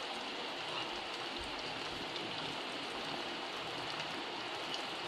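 Sesame and coconut oil with onion and fresh herb leaves sizzling and bubbling steadily in an aluminium pot on a low flame, with faint scattered crackles.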